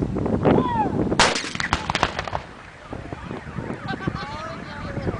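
A cannon shot: one sudden loud boom about a second in, followed by about a second of crackling and rumbling.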